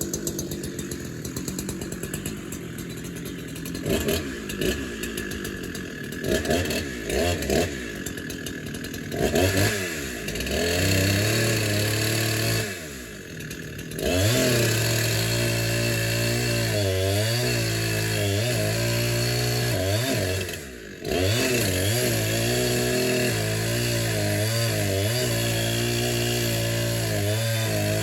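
Chainsaw idling with a few short throttle blips, then running at full throttle in long cuts through wood, its pitch sagging and recovering under load, with two brief drops back to idle.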